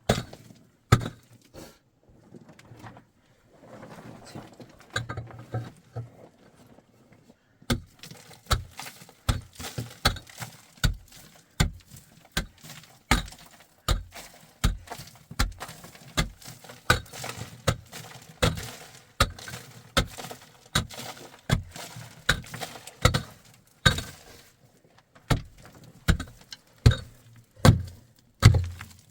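Repeated sharp knocks of something being struck: a few scattered blows, a softer rustling stretch, then a steady run of about two blows a second.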